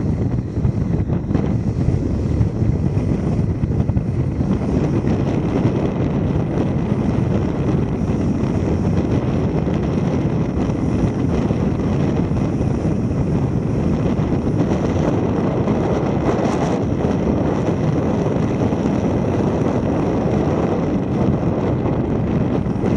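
Steady rush of wind on the microphone of a camera mounted outside a moving car, mixed with the car's road and tyre noise.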